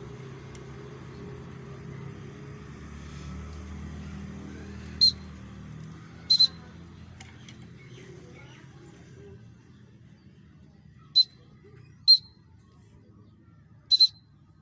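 A small raptor giving short, sharp, high chirps, about six times, some single and some in quick pairs. A low rumble underneath fades out about two-thirds of the way through.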